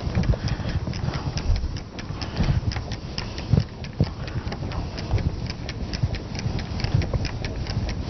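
Duster wiping a whiteboard clean in quick back-and-forth strokes: an irregular run of short scuffs and knocks, several a second.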